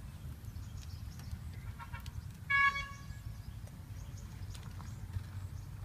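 A single short vehicle-horn toot about two and a half seconds in, over a steady low rumble of background noise.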